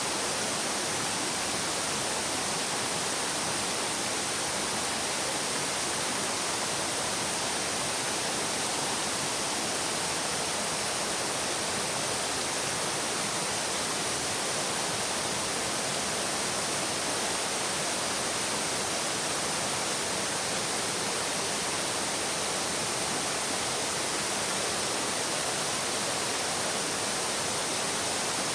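Shallow stream babbling, a steady, unbroken rush of flowing water.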